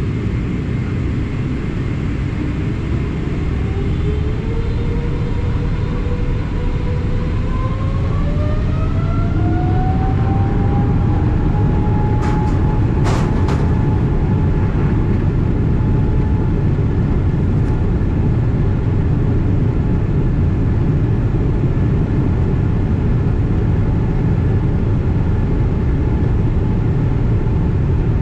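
Boeing 777-300ER's GE90 engines heard from inside the cabin, spooling up for takeoff: their whine rises in pitch over about ten seconds and then holds steady over a loud rumble that slowly grows. A few sharp knocks come about halfway through.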